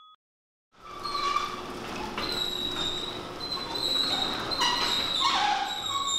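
A bell-like ding rings out and cuts off at the very start. About a second in, an overhead garage door starts closing, with a noisy rumble and high squeals that shift in pitch as it rolls down its tracks.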